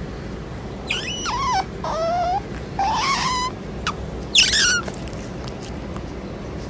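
An animal's high, wavering cries: four of them in quick succession, each under a second long and falling in pitch, over a steady low background noise.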